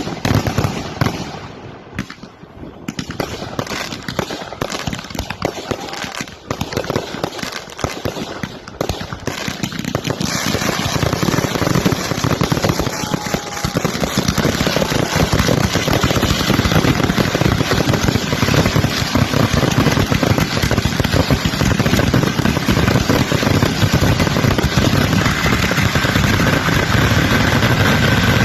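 Fireworks finale: rapid shell bursts and crackling reports that pack together about ten seconds in into a continuous, louder barrage.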